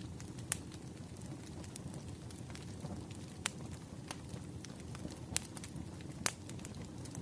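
Wood fire crackling: irregular sharp pops and snaps over a steady low rumble of the burning logs.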